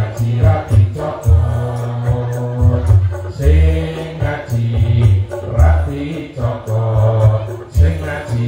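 Voices singing a Javanese song to electronic keyboard accompaniment, with deep bass notes changing every second or so.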